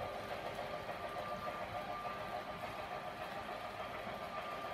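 HO-scale model goods train running along the track: a steady whirring hum from the model locomotive's electric motor and the wagons' wheels rolling on the rails, with a thin high tone held throughout.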